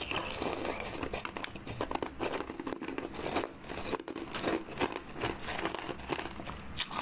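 Close-up eating sounds: crunching and chewing with many quick, irregular crackles as a ball-shaped purple pop on a stick is bitten.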